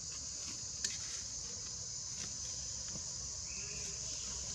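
Steady high-pitched drone of forest insects, with a single sharp click a little under a second in and a brief faint call around three and a half seconds in.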